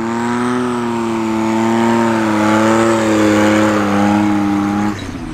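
Light STOL airplane's Hypersports Yamaha engine and propeller running at full power on a short takeoff run, a steady, slightly wavering drone over a wide rush of propeller noise. The sound changes abruptly near the end.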